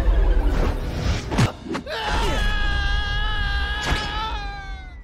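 Animated-film action soundtrack: music under a couple of sharp hits, then a long held high-pitched tone from about two seconds in that sags away near the end.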